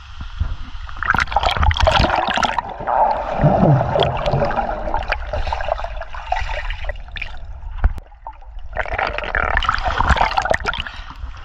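Pool water splashing and gurgling around a camera as it is dunked, then muffled bubbling heard from underwater, then a second burst of splashing near the end as the camera and swimmer break the surface.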